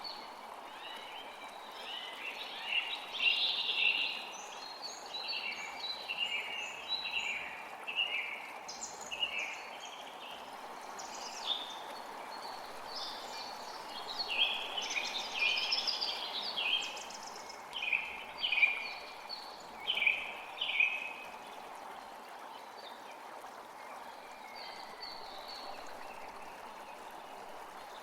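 Forest creek flowing steadily, with birds singing many short, quick phrases over it. The birdsong is busiest in the first two-thirds and thins to a few faint calls near the end.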